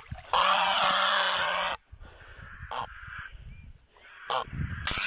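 Grey heron giving one loud, harsh squawk about a second and a half long, followed by quieter, shorter sounds.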